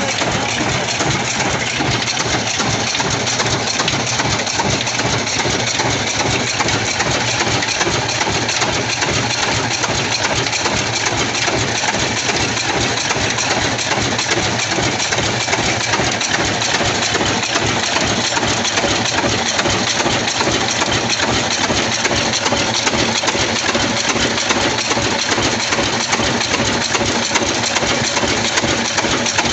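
Old horizontal stationary diesel engine with a heavy flywheel, running steadily with an even, regular beat.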